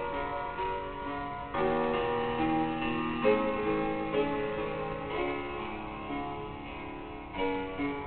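Instrumental music: plucked string notes over held chords, the notes changing every second or so.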